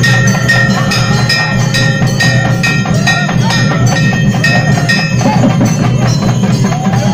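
Naiyandi melam folk band playing loud, fast drumming. A steady high ringing tone runs over it and stops about five seconds in.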